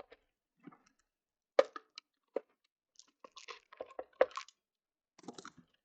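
Scattered clicks, taps and short scrapes of hands and small tools working on the Veo camera's plastic housing to open it, with sharp knocks about a second and a half in and just after four seconds.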